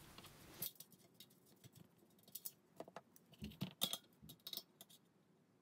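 Faint scattered clicks and taps of hands handling a bicycle wheel rim and a digital caliper set against the valve stem, with a denser cluster of clicks from about three and a half seconds in.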